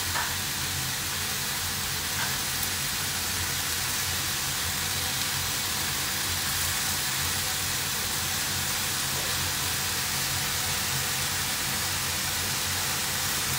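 Sliced mushrooms sizzling steadily in a frying pan as they brown, with a low steady hum underneath.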